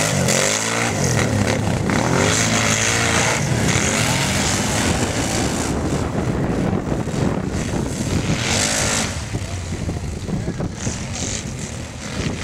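Racing ATV engines revving, their pitch sweeping up and down repeatedly in the first few seconds and again around eight seconds, then settling slightly quieter near the end.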